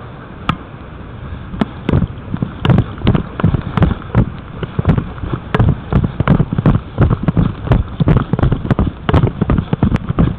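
Footfalls jolting a head-mounted camera on a walk across grass: a steady run of dull thumps, about two a second.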